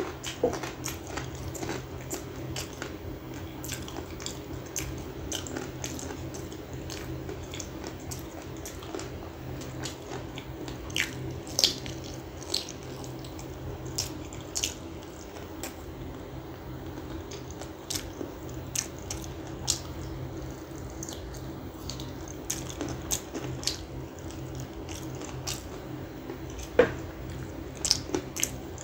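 Close-miked eating of chicken in thick gravy with the hands: chewing, lip smacks and sucking gravy off the fingers, with many short wet clicks. A steady low hum runs underneath.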